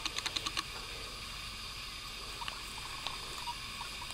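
Outdoor background: a steady, even hiss, with a quick run of about seven clicks in the first half second.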